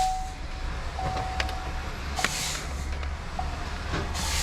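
Electronic test-equipment beeps of one steady pitch: one at the start, a longer one of nearly a second about a second in, and two brief blips later, with faint clicks over a low background rumble.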